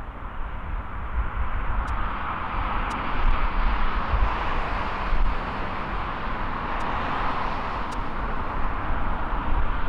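Jet airliner's engines at takeoff power during the takeoff roll: a broad roar that swells over the first few seconds and then holds, over a deep low rumble.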